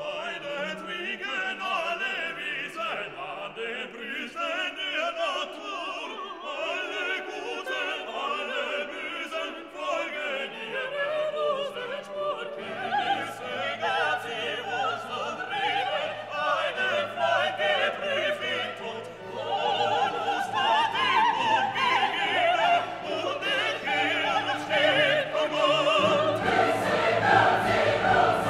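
Background classical music with operatic singing over an orchestral accompaniment. The accompaniment fills out lower and louder about halfway through and again near the end.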